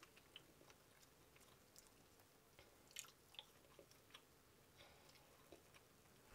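Quiet eating sounds: faint, scattered clicks and cracks of snow crab leg shell being picked apart by hand, with soft chewing.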